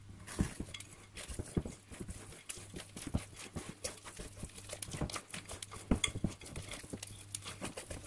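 Wire whisk stirring thick banana-bread batter in a glass bowl, its wires knocking and scraping irregularly against the glass as the flour is mixed in.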